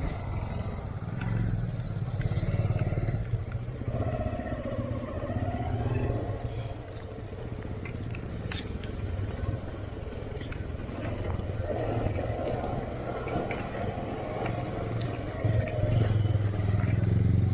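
Motorcycle engine running at low revs on a steep off-road descent, its pitch rising and falling with the throttle, with scattered sharp ticks over it.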